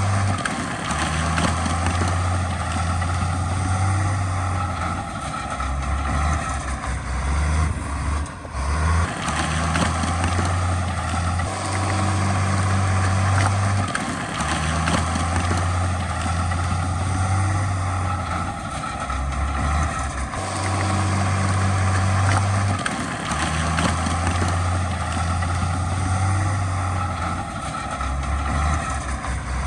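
Heavy diesel earthmoving machinery running under work, its low engine note stepping up and down in a cycle that repeats about every ten seconds.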